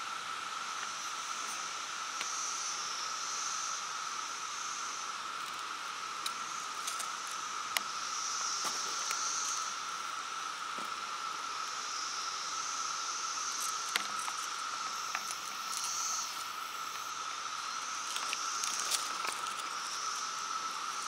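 Insects trilling steadily, with a higher buzz that swells and fades every few seconds, and scattered faint clicks.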